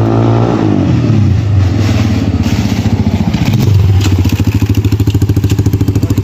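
Kayo T2 dirt bike's engine, its revs dropping in the first second, then running at a low, steady speed with a fast, even throb from about four seconds in, as at idle.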